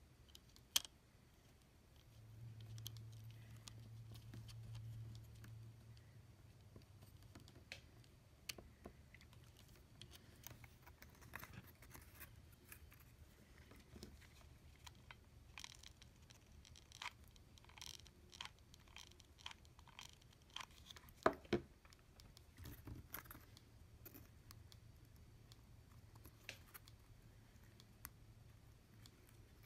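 Faint, scattered clicks, taps and scratches of hands handling small electronic parts and wires, with a low hum for a few seconds near the start.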